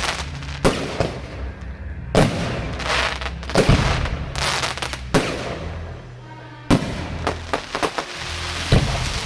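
Fireworks exploding overhead: about six sharp bangs a second or so apart, each trailed by crackling, with music playing underneath.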